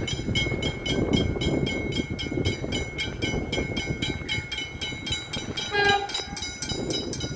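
Train passing close by on the nearest track, rumbling along, while level-crossing bells ring steadily at about four strikes a second; a brief horn toot sounds about six seconds in.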